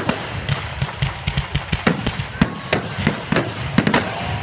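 Fireworks and firecrackers going off: a rapid, irregular string of sharp bangs and pops, about a dozen in four seconds.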